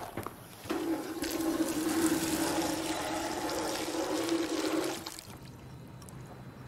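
Water poured out of a plastic bucket, splashing steadily; it starts just under a second in and cuts off about five seconds in.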